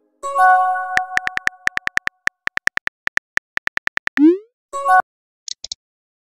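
Texting-app sound effects: a short synth chime, then a run of rapid, evenly spaced keyboard tap clicks as a message is typed, a rising whoosh as it is sent, and a second short chime.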